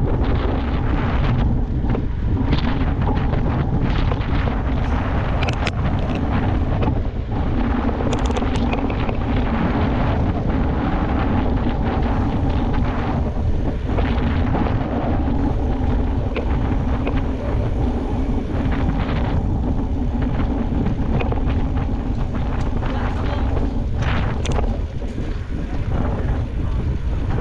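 Wind buffeting an action camera's microphone on a moving mountain bike: a steady low rumble broken by scattered short clicks and knocks.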